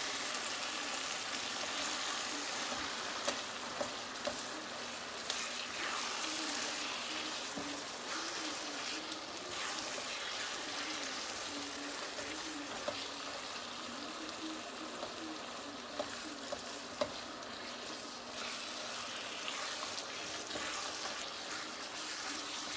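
A ground-meat mixture with sour cream sizzling steadily in a hot pan while a spatula stirs it through. A few light clicks come from the spatula knocking the pan, mostly in the first few seconds and again in the middle.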